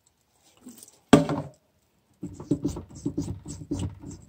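Sink-mounted soap dispenser pump being pressed over and over, about four strokes a second, as it is primed to draw liquid soap up. A single short, louder sound comes about a second in.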